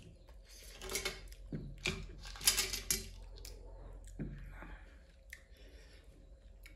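Close-miked eating sounds: a few short wet slurps and mouth noises, with light clicks of steel dishes.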